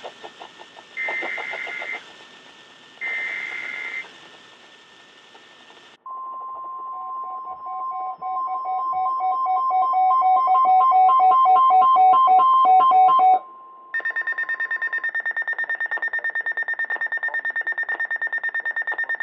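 Emergency Alert System alert from a weather radio. It opens with two one-second bursts of the SAME header data screech. Next comes the NOAA Weather Radio 1050 Hz alert tone, overlaid with pulsing beeps that grow louder and cut off about 13 seconds in. From about 14 seconds a steady, fast-pulsing high alarm tone begins, signalling a new flash flood warning.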